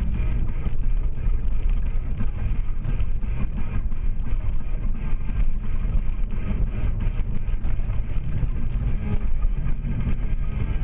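A car's engine and road noise heard from inside the cabin while driving: a steady low drone.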